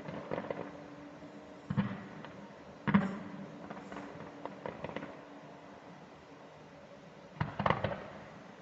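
Fireworks going off: single sharp bangs a second or so apart, with lighter crackles between them, and a quick cluster of bangs near the end.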